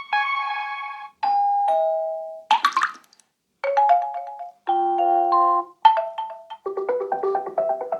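Huawei P50 Pro alert tones played one after another: about seven short chimes and marimba-like note runs, each about a second long with brief gaps between them, and a quick rising swoosh about two and a half seconds in.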